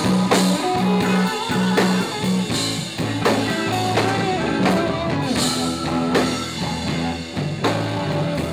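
Live rock band playing an instrumental passage between vocal lines: electric guitar with bent notes over a repeating bass line and drum kit.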